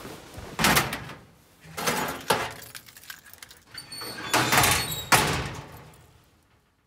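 Steel locker doors being handled and shut: three bursts of metallic clatter, each with a sharp latch click, the last near the end the loudest, with a light jingle of keys before it. The sound then dies away.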